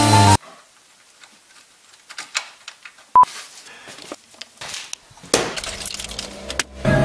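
Music stops abruptly at the start, then faint scattered clicks and taps of parts being handled, with one sharp click about three seconds in. About five seconds in a steadier noise with a low hum comes in.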